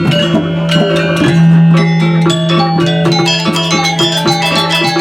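Balinese gamelan playing dance music: rapid struck metallophone notes in quick succession over a steady, sustained low tone.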